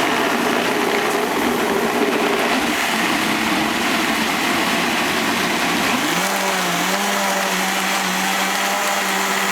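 Vitamix blender motor running hard, churning an overfilled jar of frozen bananas, leafy greens, grapes and coconut water. About six seconds in, the motor's pitch rises and then holds steady at the higher speed.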